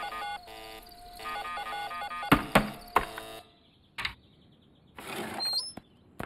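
Rapid cartoon computer blips as pop-up windows multiply on a screen, then three sharp loud knocks. After a short quiet, a click and a brief swish as a wooden gate swings open, followed by a few high chirps.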